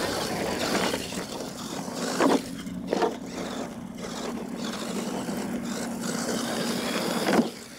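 Radio-controlled monster truck driving across loose dirt: a steady motor and drivetrain hum over the rush of the tyres in the dirt, with sharp knocks about two and three seconds in and again near the end as it bounces.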